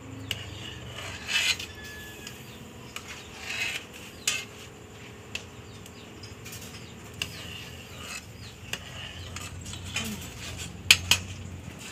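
Metal ladle knocking and scraping against a metal cooking pot and a plate while boiled okra is scooped out, in scattered clinks and clicks. Two sharp clinks about eleven seconds in are the loudest.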